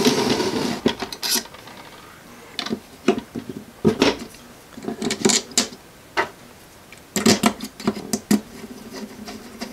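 Irregular clicks and taps of hard 3D-printed plastic parts being handled, as a small bridge plate is fitted down over its metal locating pins on the watch frame. A short scraping rustle comes in the first second.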